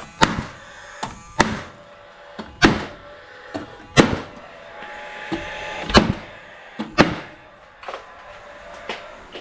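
Cordless nail gun firing nails into a timber window frame: about six sharp shots roughly a second apart, with fainter clicks and knocks between them.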